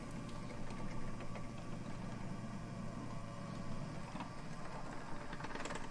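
Gauge 1 brass model of the E 71 electric locomotive rolling along the track, its drive motor and gearing giving a steady low hum with faint ticking.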